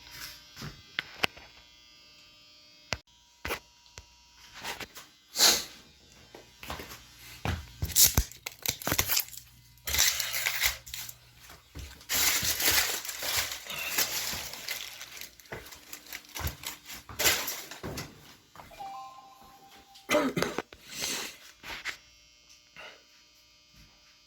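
Floor-tiling work: irregular clicks and knocks with bursts of scraping, heaviest in the middle.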